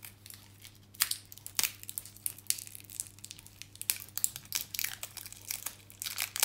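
Clear plastic wrapping crinkling and rustling in irregular crackles as it is pulled off a rolled diamond-painting canvas; the sharpest crackles come about a second in and at the very end.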